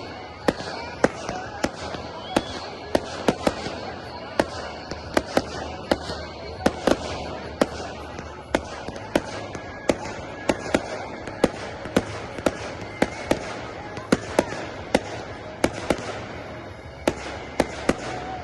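Professional fireworks display: a rapid, irregular series of sharp shell bursts, roughly two a second, over a continuous background of crackle and hiss.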